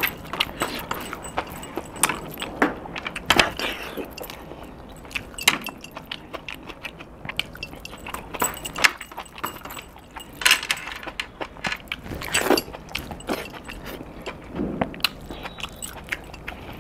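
Close-up eating sounds of a man eating chicken and rice with his bare hand: chewing with many short wet smacks and clicks, irregularly spaced. The metal bracelets and rings on his eating hand jingle as he works the food.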